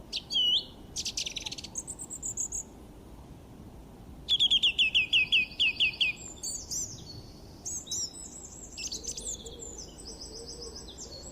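Birds singing: a quick trill, then a fast run of about ten down-slurred whistles, followed by varied high-pitched chirps and phrases.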